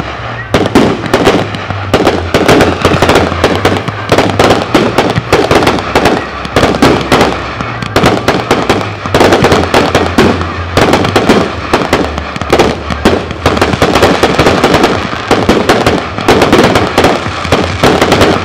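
Firework battery (cake) firing a continuous, rapid barrage of shots, many cracks and bangs a second as comets are launched and small stars burst overhead.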